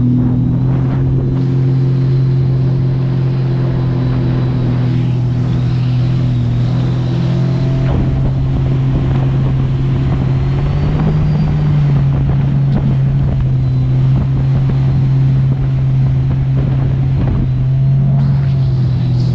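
Sea-Doo RXT-X 300 personal watercraft's supercharged three-cylinder engine running steadily at speed under way. Its pitch rises a little about ten seconds in and again near the end.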